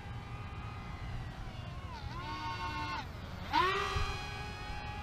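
Small electric motors and propellers of a foam RC model C-17 whining in flight, coming and going as it flies around, its pitch shifting between passes. The whine is loudest on a close pass about three and a half seconds in.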